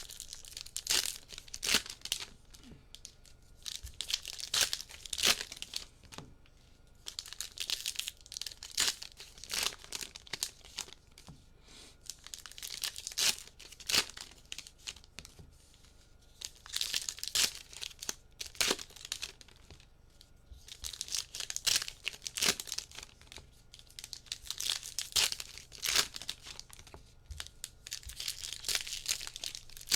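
Trading card packs being torn open by hand, their wrappers crinkling and crackling in repeated spells every few seconds.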